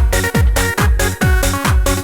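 Electronic dance music with a steady kick-drum beat, a bit over two beats a second, under sustained synth chords.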